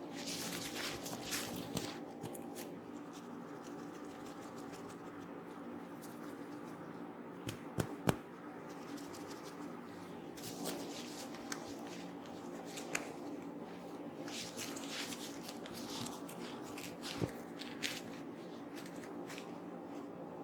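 Hands rubbing over hair and skin in a head massage: repeated rustling friction sounds over a steady low hum, with a few sharp clicks, two close together about eight seconds in and another near the end.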